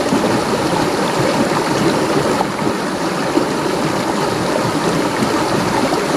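Shallow rocky river running over stones and small rapids: a steady, even rushing of water.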